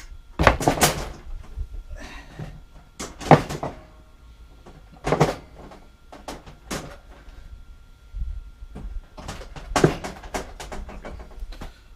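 A series of knocks, clunks and short scrapes from a plywood top being handled and shifted on the shop table, about five separate bursts with quiet between them.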